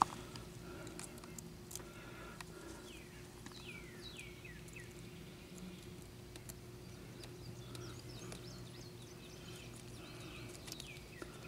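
Faint outdoor ambience: a bird calls in short runs of quick, downward-sweeping chirps, twice, over a low steady hum, with a few faint clicks.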